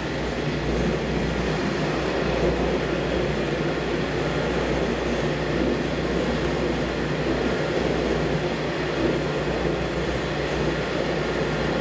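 Breddo 300-gallon high-shear liquefier running, its 75 hp side-mounted motor driving the bottom impeller. It makes a steady mechanical running noise with a low hum and no change in speed.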